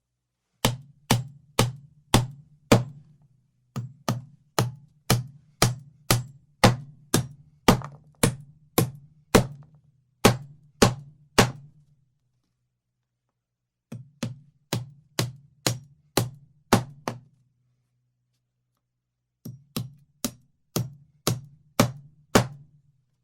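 Hammering: sharp, evenly spaced blows about two a second, each with a short low ring. The blows come in four runs, with pauses of a second or more between them.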